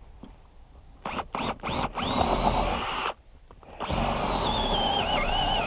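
DeWalt cordless drill boring down through a wooden wall top plate with a long drill bit: a few short trigger pulls, a steady run, a brief stop, then a longer run whose motor whine wavers and dips as the bit loads up in the wood.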